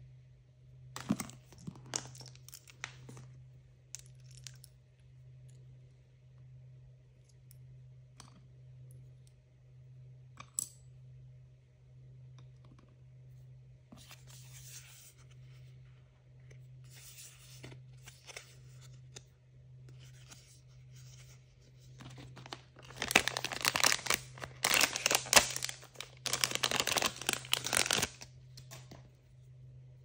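Packaging being torn open by hand: scattered light taps and short rustles, then a loud, dense run of tearing for about five seconds near the end. A faint steady low hum runs underneath.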